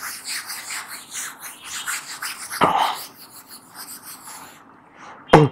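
Whiteboard being wiped clean by hand: quick back-and-forth rubbing strokes that stop about four seconds in. A brief burst of voice near the end is the loudest sound.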